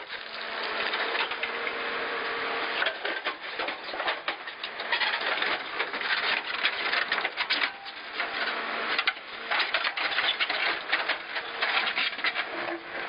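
JCB backhoe loader's diesel engine running with a steady hum, its backhoe bucket digging and scraping through dirt and broken concrete with a constant clatter of stones and rubble.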